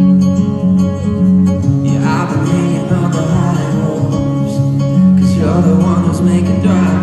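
Live band music from a rock concert, heard from the audience: guitar over sustained bass notes, with a male singer's voice through the PA swelling in about two seconds in and again near the end.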